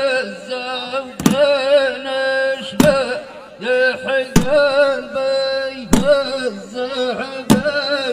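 A man chanting a Saharan folk poem in a drawn-out, sung voice over a steady drone, with a sharp beat about every second and a half.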